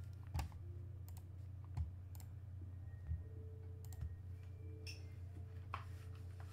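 A few scattered clicks of a computer mouse over a steady low hum, with a brief handling noise near the end.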